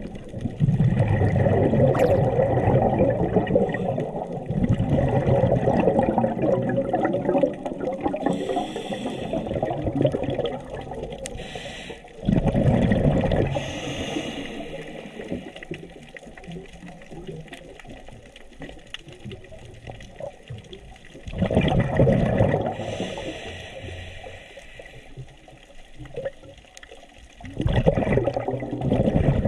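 Scuba diver breathing through a regulator underwater: four bubbling exhalations, the first one long, with short hissing inhalations in between.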